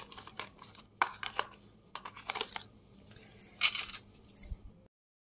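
Irregular clinks and scrapes of a steel spoon against a steel mixing bowl holding thick pakora batter.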